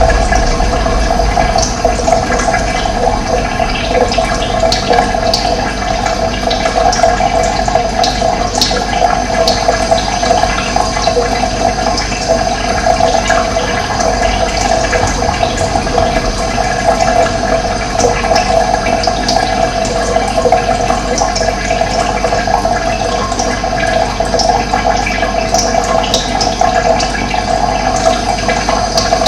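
Running water, a steady, continuous burble and splash of a flowing stream.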